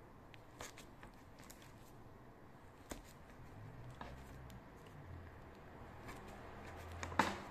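Pisang bolen (flaky puff pastry) being cut into portions: faint scattered taps and crackles, with one sharper knock near the end.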